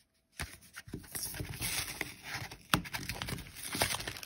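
Hands handling trading cards and plastic blister-pack packaging: rustling with irregular sharp taps and clicks, beginning after a brief silence.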